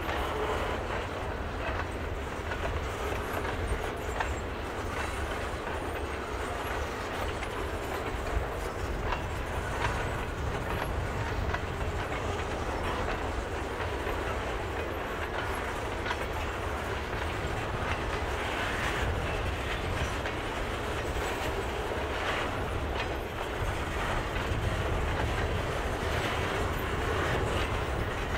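Freight cars crawling slowly over poorly maintained, snow-buried branch-line track, a steady low rumble of rolling steel wheels broken by irregular clicks and knocks at the rail joints.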